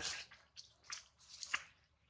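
An infant monkey chewing and sucking its fingers: a few short, wet mouth clicks. A high tone fades out right at the start.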